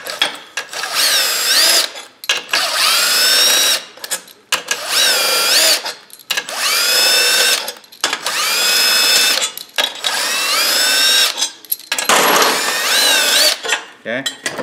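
Power drill with a socket bit backing out the cylinder head bolts of a 12 hp Briggs & Stratton engine. It runs in about seven short bursts, one per bolt, each spinning up with a rising whine and then running at a fairly steady pitch.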